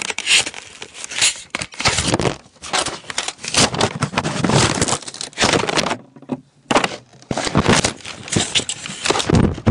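Rough scraping and rubbing handling noise in irregular bursts, with a brief lull about six seconds in. A plastic magazine is being worked out of a CYMA P.815 plastic spring airsoft pistol, with hands jostling the hand-held camera.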